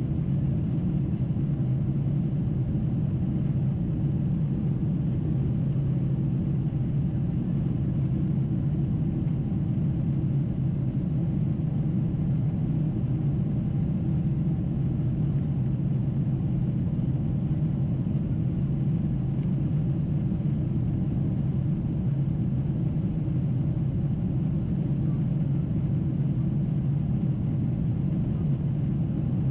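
Steady low cabin drone of a Boeing 747-8 climbing after takeoff: its GEnx-2B engines and the airflow over the fuselage, heard from a window seat inside the cabin.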